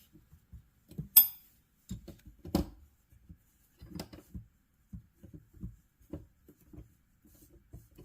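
Metal wrenches being fitted onto plastic wrench-organizer rails: scattered light clicks and knocks, with a sharp metallic clink about a second in.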